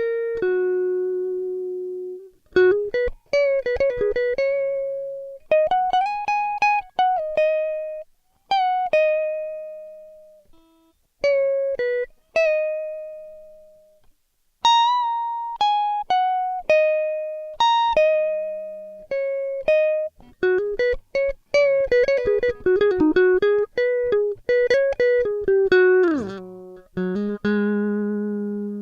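Background music: a solo guitar plucking single notes and short phrases, each note ringing and fading, with one note sliding down in pitch near the end.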